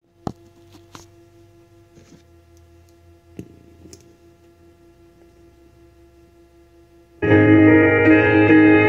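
Faint steady hum with a few sharp clicks, the first one loud, then about seven seconds in a backing track for a country song starts loudly with sustained keyboard chords.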